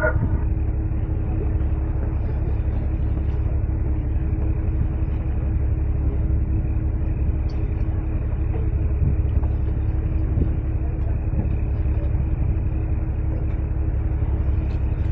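Boat engine running with a steady low drone and a faint constant hum.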